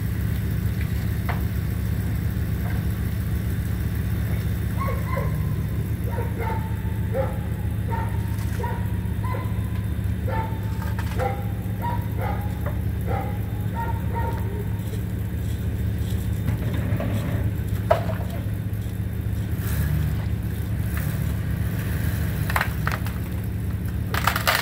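An engine idling steadily. Through the middle comes a run of short, high, squeaky chirps, and near the end a few sharp clicks.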